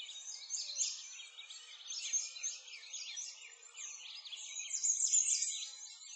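Birdsong chorus: many birds chirping and singing over one another in quick, high, overlapping chirps.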